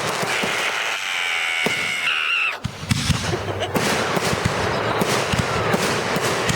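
Consumer fireworks going off in quick succession: dense crackling and popping with low thumps. A steady high whistle sounds for about two seconds in the first half.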